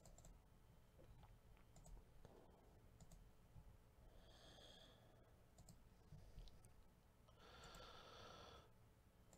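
Near silence: faint room tone with a few soft computer-mouse clicks, and two soft breathy sounds, about four seconds in and near the end.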